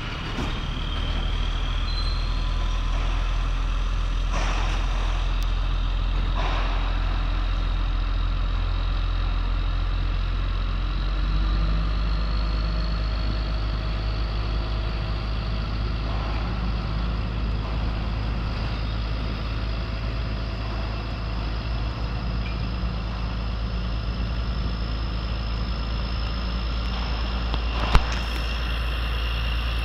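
Locatelli Grill 830 mobile crane's engine running steadily while the crane holds a suspended concrete panel, its low hum changing pitch about a third of the way through, with a thin high whine rising slowly. A sharp click sounds near the end.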